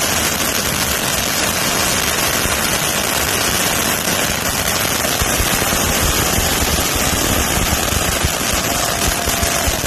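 Many safe-and-sane ground fountain fireworks burning at once: a dense, steady hiss and crackle, with a faint short whistle near the end.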